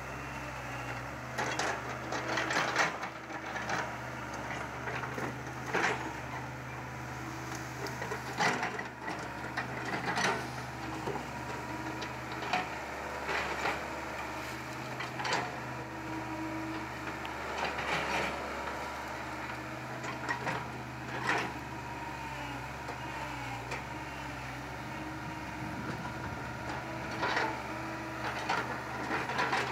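Caterpillar hydraulic excavator's diesel engine running steadily, with irregular sharp cracks and snaps of wood as trees and branches are broken and pushed over.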